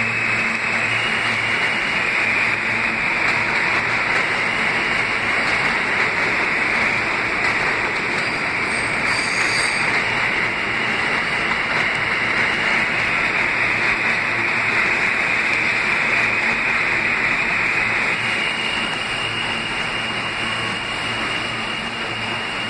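New York City subway trains running past on the far track: a steady, loud rumble and hiss of steel wheels on rail, brightest in a high hissing band. It eases off a little near the end.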